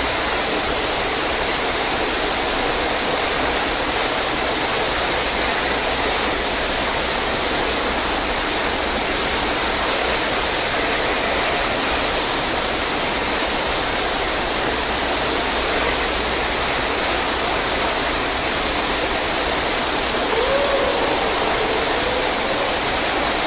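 Steady rush of pumped water pouring up the ramp of an indoor sheet-wave surf simulator.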